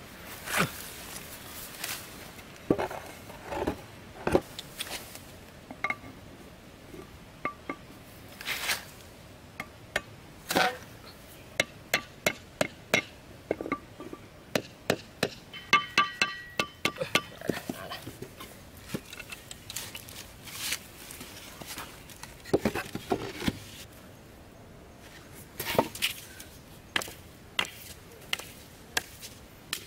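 Weathered wooden boards being knocked and tapped into place by hand: a long, irregular run of sharp wooden knocks and taps, with a quick flurry of ringing clinks about halfway through.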